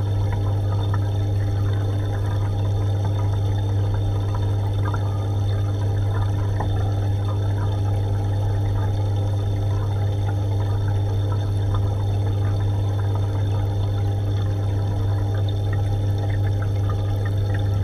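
Aquarium pump running with a steady low hum, and water trickling and bubbling in the tank.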